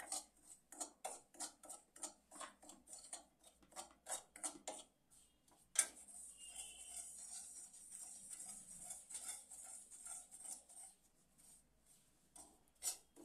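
Spoon stirring dry semolina in a kadhai, scraping and tapping against the pan about four times a second, with a sharp knock about six seconds in and softer, steadier scraping after it.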